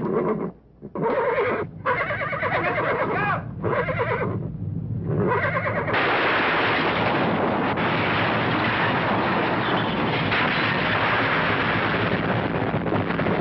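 A horse whinnying in several wavering calls with short breaks between them. About six seconds in, a loud, steady rushing noise takes over.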